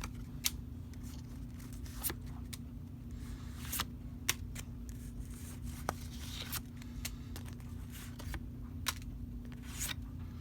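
Pokémon trading cards being handled and flicked through one at a time, with short sharp snaps and slides of card edges every second or two, over a steady low hum.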